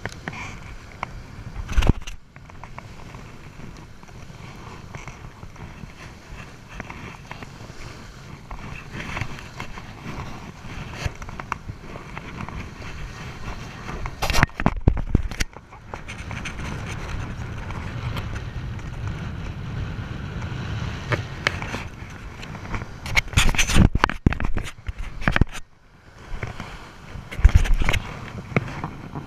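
Wind rumbling on the microphone, broken every few seconds by close scrapes, rustles and knocks from the angler handling line and a landed sand shark on the sand.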